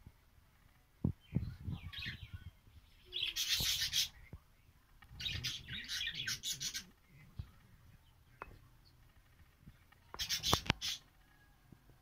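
Budgerigars chirping and chattering in several short bursts, with a few low knocks about a second in.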